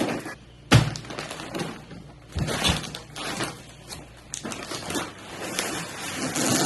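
Packaging being handled during an unboxing. There is a sharp knock just under a second in, then irregular rustling, crinkling and scraping.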